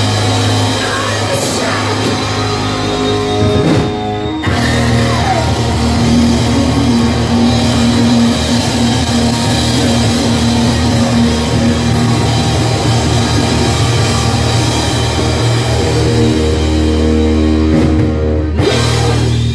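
Live rock band playing: electric guitar and Pearl drum kit, with a singer. The music breaks off briefly about four seconds in, then comes back in full.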